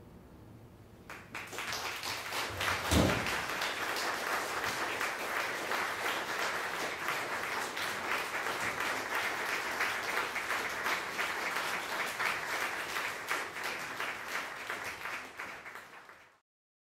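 Audience applauding: the clapping breaks out about a second in, holds steady, and cuts off suddenly near the end. A low thump stands out about three seconds in.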